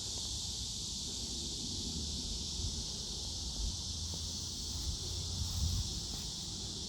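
Steady high-pitched drone of an insect chorus in summer heat, with wind rumbling on the microphone.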